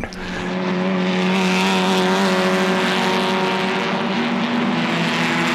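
Vintage sports-racing car engines running at speed. A steady engine note swells in over the first second and then holds.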